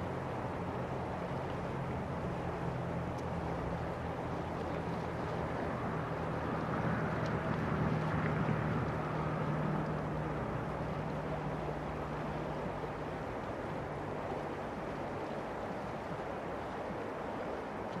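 River water rushing over a stony bed in a steady hiss, with a low hum underneath that swells about halfway through.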